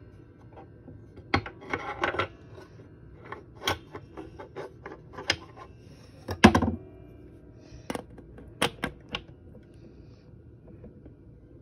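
Irregular clicks and knocks from hands handling the Hamilton Headmaster wall clock, getting its winding key to the dial to wind it, with one louder knock about halfway through.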